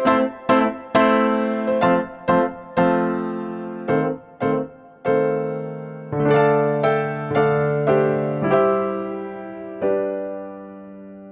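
Background music on an electric piano: a light classical-style run of struck notes and chords, ending on a held chord that fades away near the end.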